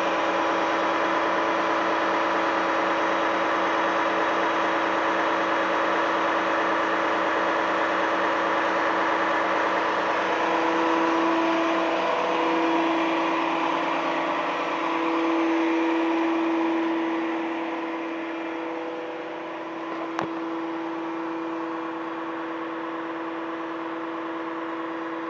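Volvo FM fire truck's diesel engine running to drive the aerial platform's hydraulics, with a steady whine over the engine. It gets somewhat quieter about two-thirds of the way through, and there is one sharp click shortly after.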